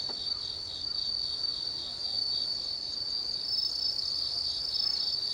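Chorus of autumn insects, crickets singing a steady high-pitched trill, with a second, higher-pitched singer joining about three and a half seconds in.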